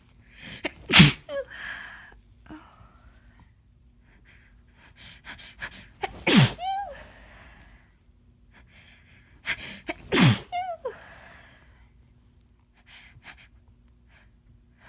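A woman with a head cold sneezing three times, about four to five seconds apart. Each sneeze is sudden and loud, comes after a few quick catching breaths, and ends in a short falling voiced tail. The title calls these sneezes wet.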